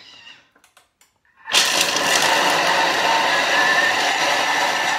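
Thermomix blade spinning at speed 7, chopping bread, onions, peanuts and ginger together. It starts suddenly about a second and a half in and runs loud and steady.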